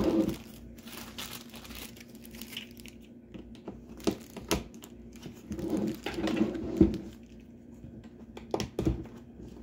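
A plastic bag crinkling as caster wheels are handled, at the start and again about six seconds in, with several sharp clicks and knocks as the wheels' stems are pushed into the sockets of a plastic cart.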